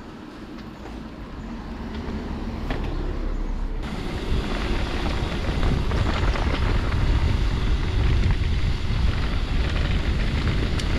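Wind rumbling on the microphone of a camera riding along on a mountain bike, with tyre and trail noise and small rattles and clicks from the bike. It gets louder through the first few seconds and steps up sharply about four seconds in.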